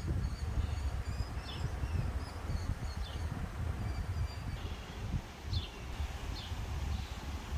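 Small birds chirping, short high notes and quick falling calls repeated throughout, over a steady low rumble of wind on the microphone.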